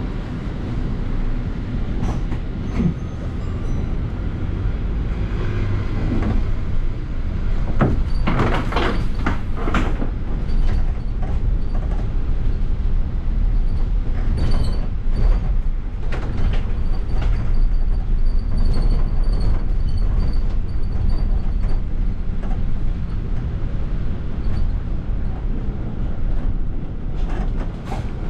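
Interior of a London bus in motion: steady low engine and road rumble, with knocks and rattles from the bodywork and fittings, clustered at about eight to ten seconds in and again around fifteen seconds. A faint high whine runs through the middle stretch.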